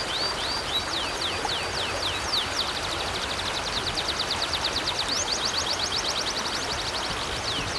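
A songbird singing over the steady rush of a flowing river. For the first two seconds it gives slower sweeping chirps, about three a second, then breaks into a long, rapid trill of many short repeated notes.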